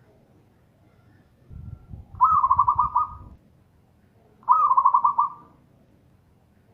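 Zebra dove (perkutut) cooing twice, each a rapid run of staccato notes lasting about a second, the second about two seconds after the first. A low rumble runs beneath the first call.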